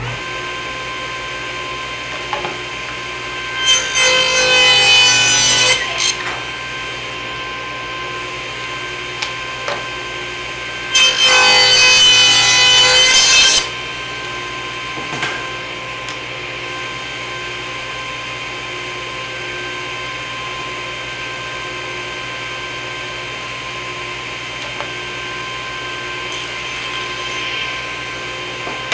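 Table saw running steadily, with two cuts through wood: the blade bites in about four seconds in for two seconds, and again about eleven seconds in for about two and a half seconds, each louder and brighter than the idle run. The cuts are slicing thin biscuit stock to thickness on a sled.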